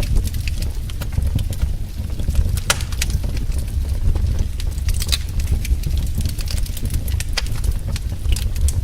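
Fire crackling in a fireplace: irregular sharp pops and snaps over a steady low rumble of the flames.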